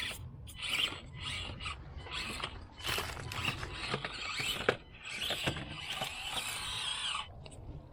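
Axial SCX24 Deadbolt 1/24-scale mini crawler's small electric motor and gears whining in short stop-start bursts as the throttle is worked, the pitch rising and falling, with scattered clicks and knocks.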